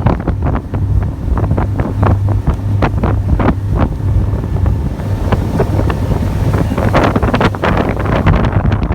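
Speed boat running at speed: a steady low engine drone under heavy, irregularly gusting wind on the microphone.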